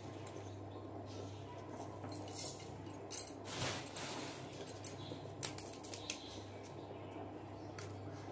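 Whole coriander seeds dropped into an empty iron kadai, a short rattle of seeds on the metal about three and a half seconds in, followed by a few light clicks as more whole spices go into the pan. A steady low hum runs underneath.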